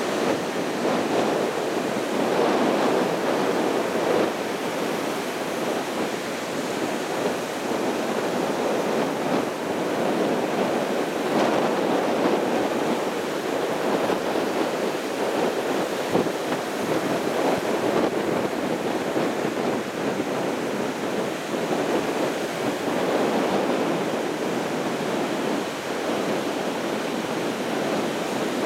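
Sea surf breaking steadily, a continuous wash of waves that swells gently every few seconds.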